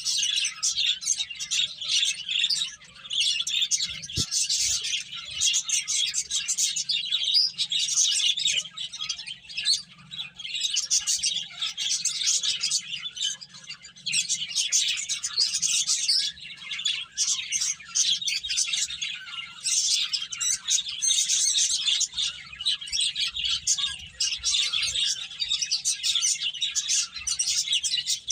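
Several pet finches chirping, with rapid, overlapping high calls running almost without a break.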